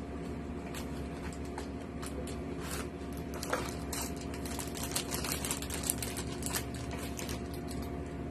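A toy car's clear plastic wrapper and cardboard box being opened by hand, crinkling and rustling in quick irregular crackles that grow busiest in the second half. A steady low hum runs underneath.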